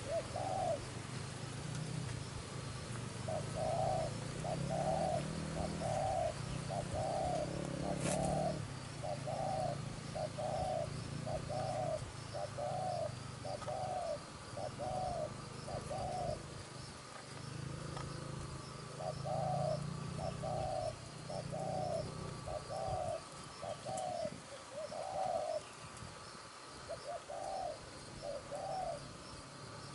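Spotted doves calling: runs of short, evenly spaced notes, a little more than one a second, broken by pauses of a few seconds. A single sharp click comes about eight seconds in.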